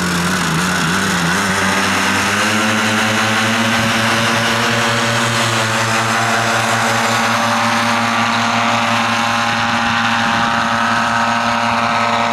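Paramotor trike's engine and propeller rising in pitch to full throttle about two seconds in, then holding a steady, loud full-power note for the take-off run and climb.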